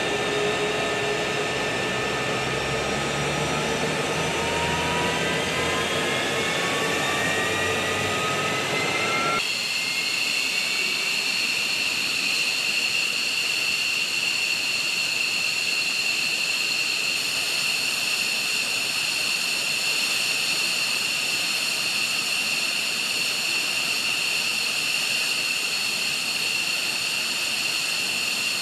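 F-15 Eagle's twin jet engines spooling up: a whine made of several tones rising steadily in pitch for about nine seconds. It then changes abruptly to a steady, high-pitched idle whine.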